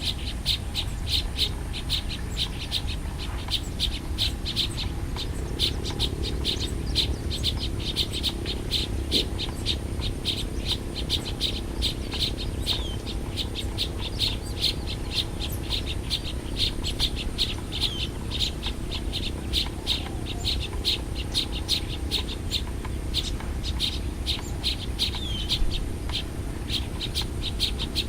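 Small birds chirping without pause: many short, high chirps come several a second, overlapping, with the odd falling note. A low steady rumble runs underneath.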